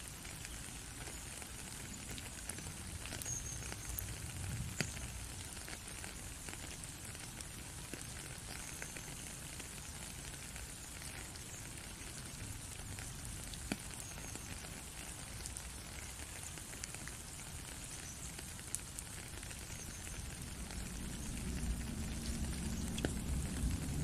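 Steady rain falling, an even hiss with scattered ticks of single drops. A low rumble builds in under it near the end.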